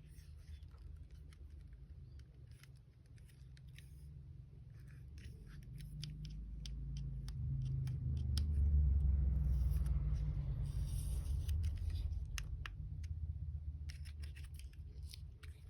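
Handling noise: scattered clicks and scratches, as of small plastic parts being handled, over a low rumble that swells to its loudest about midway and then fades.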